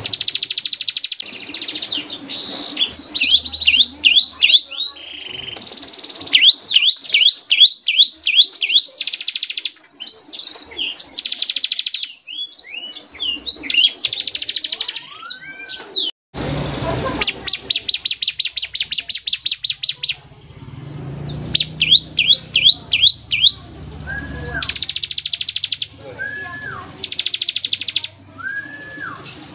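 Bar-winged prinia (ciblek) singing: loud bursts of very fast, high-pitched machine-gun trills alternating with quick sweeping notes, phrase after phrase.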